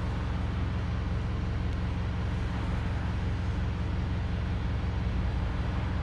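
Daimler OM934 four-cylinder diesel engine of a Wright StreetLite single-deck bus idling steadily with the bus standing still, heard from inside the passenger saloon.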